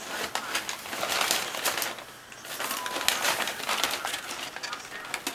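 Crumpled packing paper crinkling and rustling as a Siamese cat moves about in it inside a cardboard box, in two spells with a short lull about two seconds in.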